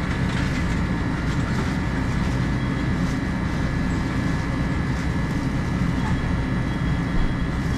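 Steady low machine hum with a thin, faint high whine over it, unbroken throughout.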